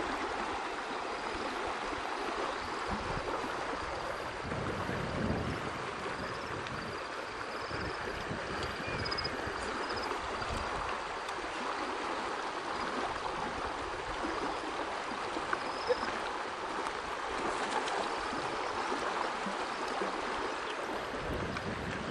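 Water of a creek run-off rushing and gurgling steadily, with a few faint high chirps and one sharp click about three-quarters of the way through.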